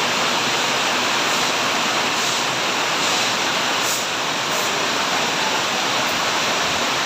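Heavy storm rain pouring down, a dense steady hiss of water with no let-up.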